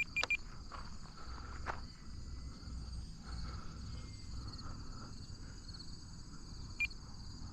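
Steady chorus of crickets trilling, with low wind rumble underneath. A few short electronic beeps from the RC transmitter sound right at the start and once more near the end.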